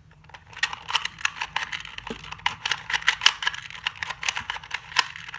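Plastic Rubik's-type puzzle cube being turned quickly by hand, its layers giving a fast, uneven run of sharp plastic clicks starting about half a second in.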